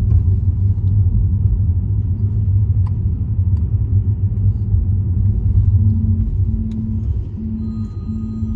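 A loud, steady low rumble. About six seconds in, a short tone starts pulsing over it, roughly one pulse every 0.7 s.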